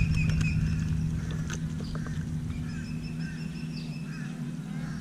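Steady low electric hum from the bass boat's bow-mounted trolling motor, fading out near the end, with a bird calling over it in many short, repeated honking notes. A few sharp clicks come in the first half-second as the small bass is swung aboard.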